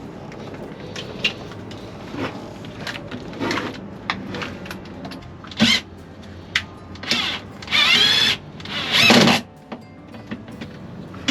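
Power drill driving screws to fix a bilge pump's base bracket in place, in several short bursts. The two longest bursts come near the end, with clicks and knocks of handling between them.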